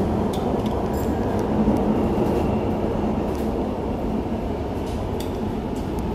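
Dubai Metro Alstom train running through an underground tunnel, heard from inside the carriage: a steady low rumble of wheels on rail, with a few faint clicks.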